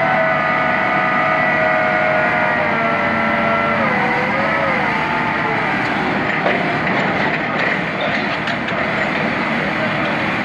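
Rotary piling rig's engine and hydraulics running with a steady whine. About four seconds in the whine dips in pitch and recovers, then the sound turns rougher, with a few light clicks.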